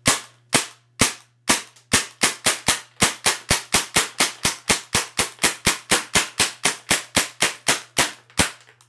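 CO2-powered MAC-11 airsoft gun firing on semi-auto: sharp single shots about half a second apart at first, quickening to about four a second from about two seconds in.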